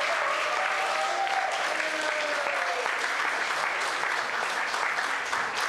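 Audience applauding: dense, steady clapping at the end of a talk.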